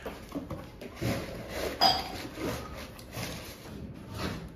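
Small items and packaging being handled while unpacking a gift parcel: scattered light clinks and clicks, with one sharper clink a little under two seconds in.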